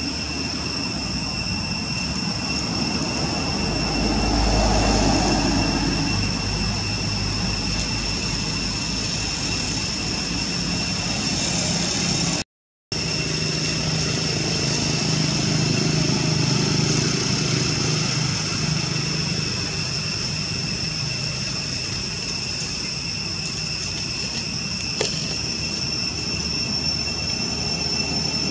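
Outdoor ambience: a steady high-pitched insect drone, with a low engine-like rumble that swells about four to six seconds in and again for several seconds after the middle. Everything drops out for an instant about halfway.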